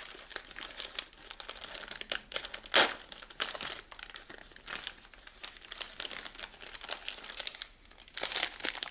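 Crinkly snack packaging being crumpled and torn open by hand, with one loud sharp crackle about three seconds in. The pack is hard to open.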